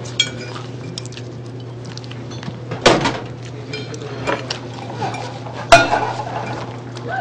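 Dishes and cutlery clinking and clattering, with two louder knocks about three and six seconds in, over a steady low hum.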